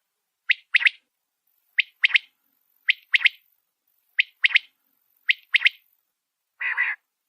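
Quail calling in a steady series of sharp two-note calls, about one call a second, followed near the end by a single longer, harsher note. This is the kind of call that bird catchers play to lure quail into nets.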